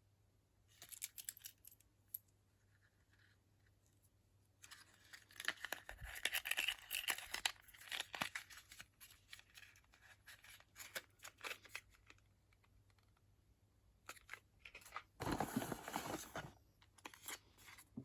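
Product packaging being handled and torn open: crinkling and tearing in two stretches, about five seconds in and again around fifteen seconds in, with scattered light clicks and taps between.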